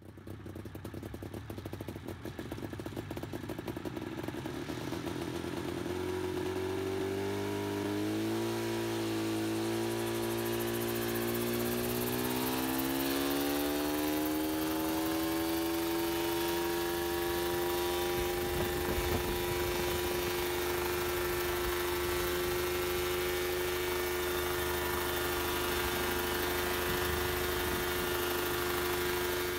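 Homemade helicopter's engine running as the rotors spin up. Its note rises steadily over roughly the first dozen seconds, then holds at a steady, higher pitch.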